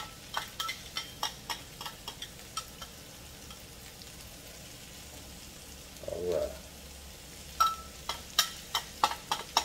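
A metal utensil clicking and scraping against a pan and container as caramelized onions are spooned onto burgers, in quick taps over a faint steady hiss. The clicking pauses midway, with a brief voiced hum about six seconds in.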